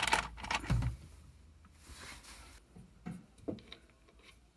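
Steel hydraulic fittings clinking in a plastic parts bin as a hand rummages through them, with a dull thump about a second in, then a few faint, scattered clicks as a fitting is handled at the sprayer's outlet.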